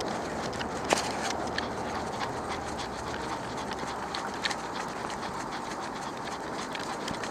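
Dog panting steadily right at the microphone, with a few sharp clicks, the loudest about a second in.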